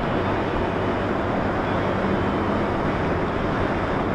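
Motorcycle cruising at a steady speed: wind rushing over the microphone with the engine's steady hum underneath.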